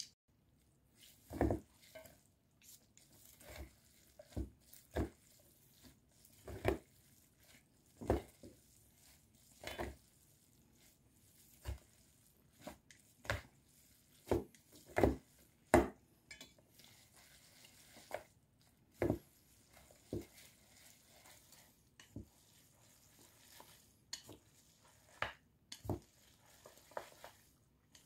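Long wooden chopsticks knocking against a stainless steel mixing bowl as noodles in sauce are tossed and stirred, irregular clacks every second or two.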